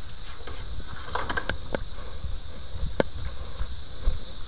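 Footsteps on a concrete floor, a few sharp steps heard over a steady high hiss and low rumble.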